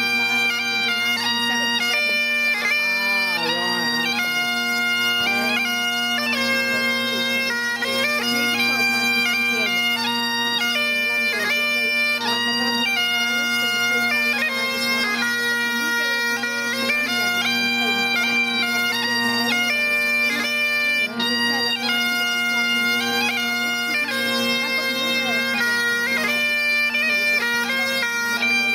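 Bagpipes playing a slow tune over their steady, unbroken drones.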